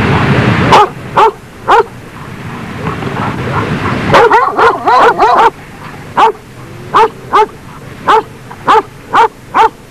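Caucasian shepherd dog barking: short, sharp barks, first a few singly, then a quick run of about six, then single barks about half a second apart. A steady noise stops abruptly just before the first bark.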